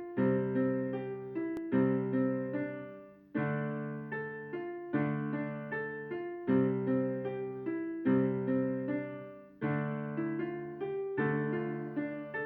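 Solo piano-toned keyboard playing a slow instrumental piece: a chord struck about every one and a half seconds and left to fade, with a few melody notes over it.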